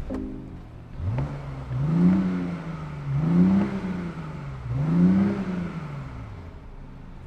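BMW i8's 1.5-litre turbocharged three-cylinder petrol engine revved three times, each blip rising in pitch and falling back to idle.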